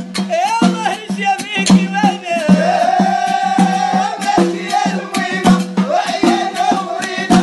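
Music: a wavering, ornamented melody line over a steady low drone, with fast rattling percussion running through it.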